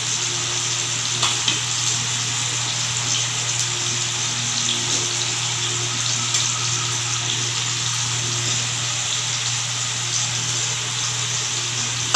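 Tamarind fish curry (fish pulusu) simmering in a pot on the stove: a steady bubbling hiss with a few faint ticks, over a low steady hum.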